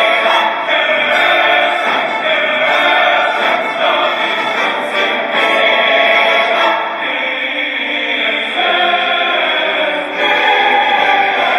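Soundtrack music with operatic singing, continuous throughout.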